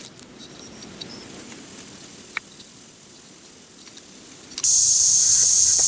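Low rustling and handling noise with a few light clicks. About four and a half seconds in, a loud steady chorus of crickets comes in.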